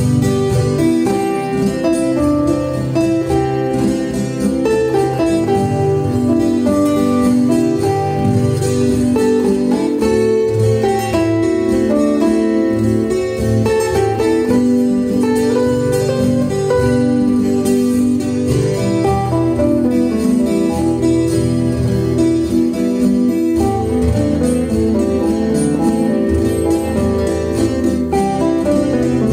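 Background guitar music.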